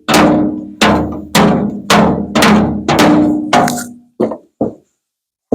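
Hammer blows on the steel front fender of a 1950 Ford F1, about two a second, each leaving a short metallic ring, as the dented panel is beaten back into shape from underneath. The blows weaken to two lighter hits about four seconds in, then stop.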